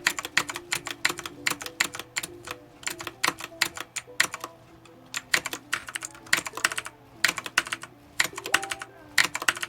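Typing on a Redragon Kumara K552 mechanical keyboard with clicky Outemu Blue switches: a rapid run of sharp key clicks, with a short pause a little before the middle.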